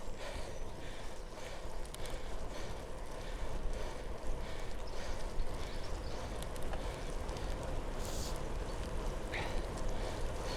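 Wind buffeting the microphone with a steady low rumble, over the hiss of bicycle tyres on a wet road while riding.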